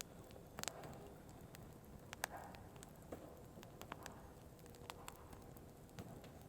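Burning firewood crackling: scattered sharp pops, the loudest about two seconds in, over a faint steady background.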